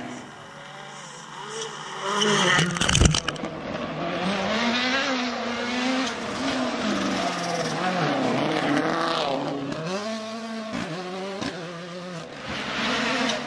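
Ford Fiesta World Rally Car's turbocharged four-cylinder engine at full attack through a hairpin, the pitch rising and falling as the driver brakes, changes gear and accelerates away. There is a loud sharp crack about three seconds in, and several brief cut-outs with cracks near the end as it upshifts.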